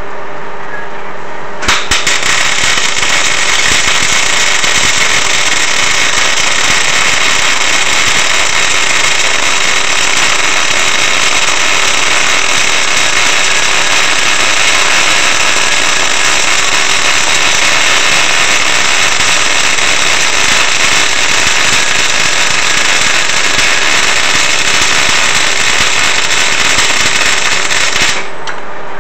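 MIG welding arc with CO2 shielding gas, a loud steady crackle full of spatter. It strikes about two seconds in and cuts off just before the end.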